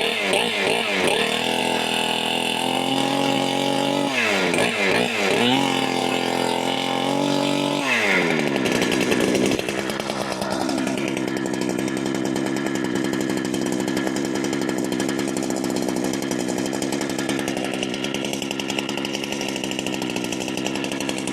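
Large-displacement Holzfforma clone chainsaw running on its first start: the throttle is blipped twice, then revved up and held high for a moment. About ten seconds in it drops to a steady idle.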